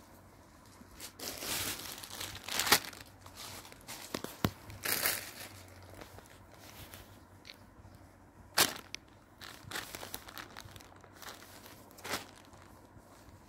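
Folded embroidered fabric rustling and crinkling as it is handled and turned over: irregular rustles with a few sharper crinkles.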